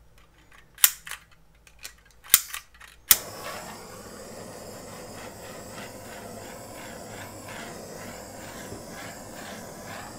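Handheld gas torch being lit: several sharp clicks of the igniter over the first three seconds, then the flame catches about three seconds in and hisses steadily.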